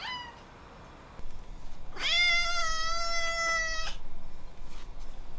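Ragdoll cat meowing: a short rising call at the start, then about two seconds in a long, steady meow lasting about two seconds.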